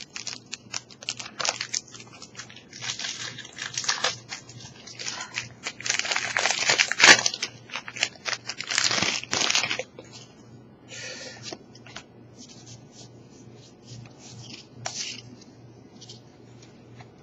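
Foil booster-pack wrapper of a Pokémon trading card pack being crinkled and torn open by hand, a run of crackling rustles that is loudest in the middle and then thins to faint crinkles near the end.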